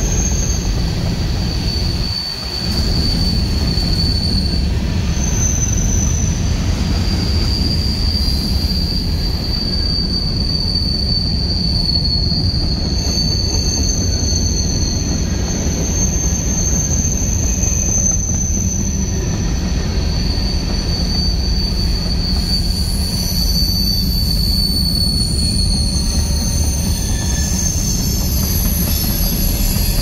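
CSX freight train G412 rolling past, a steady rumble of wheels on rail. Thin, high wheel squeals come and go over it, and there is a brief lull about two seconds in.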